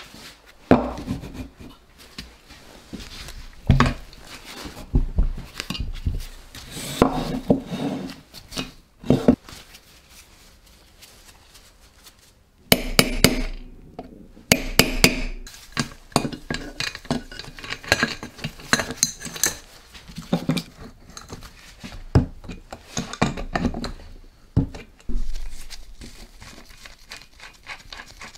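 Irregular metal clinks and knocks of hand tools working on a Simson M541 two-stroke engine case at its output sprocket and chain, with a cluster of sharp metal strikes about halfway through.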